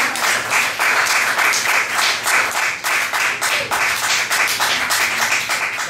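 Audience applauding, with many hands clapping densely and steadily.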